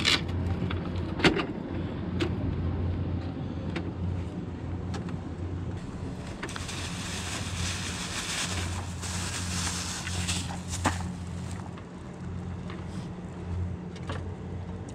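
A wire crab trap being handled and baited: scattered clicks and rattles of the wire, with a plastic bait bag rustling for a few seconds in the middle. Under it all runs a steady low motor hum.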